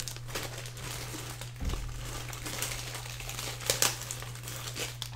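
Thin clear plastic bag crinkling and rustling as it is handled, with a soft low thump about a second and a half in.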